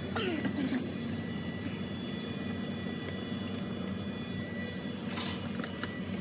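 A car engine running steadily, a low hum heard from beneath the car. A brief squeak falls in pitch in the first second, and a short scrape comes about five seconds in.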